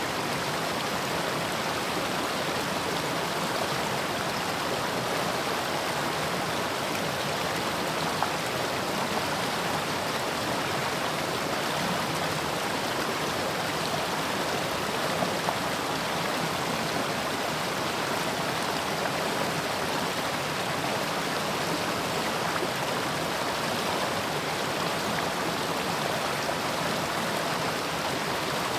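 Mountain stream flowing over rocks: a steady rushing of water with small splashes.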